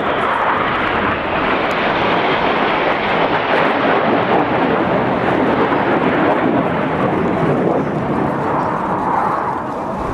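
Formation of BAE Hawk T1 jets, Rolls-Royce Turbomeca Adour turbofans, flying past with a steady rushing jet noise that is loudest through the middle and eases off somewhat near the end.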